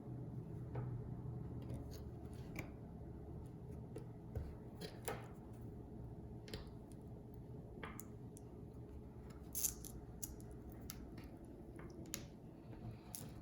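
Small, irregular clicks and scrapes of a hand pry tool working an iPhone 8 battery up off its adhesive, over a low steady hum; the sharpest click comes near the end.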